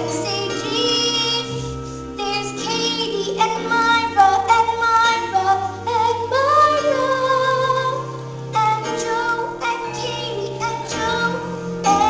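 A song: a high voice singing held, gliding notes over instrumental backing with a steady low bass line and frequent percussive clicks.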